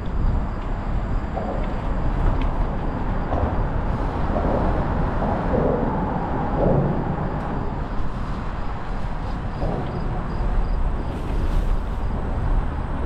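Steady wind rush on the microphone and tyre rolling noise from a mountain bike ridden on a paved path, with road traffic passing on the highway bridges overhead. The traffic swells briefly about halfway through.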